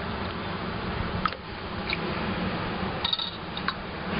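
A few light clinks against glass mugs as evaporated milk is added to hot drinks and stirred, over a steady low hum.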